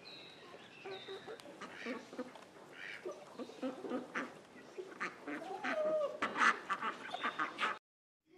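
Farmyard poultry calling: chickens and a duck, a run of short calls that grows busier and louder toward the end and then stops abruptly.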